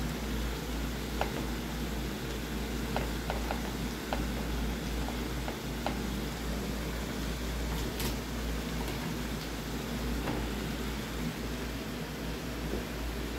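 Light clicks and taps of metal tongs as fish pieces are moved about in a pan of shredded cabbage, with one sharper click about eight seconds in. A steady low hum with a faint hiss runs underneath.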